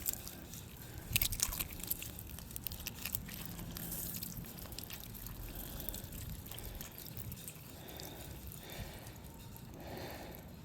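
Water trickling and dripping from the end of a water heater drain hose during a sediment flush, with a weak flow through a hose the owner thinks is stopped up. A few sharp clicks about a second in.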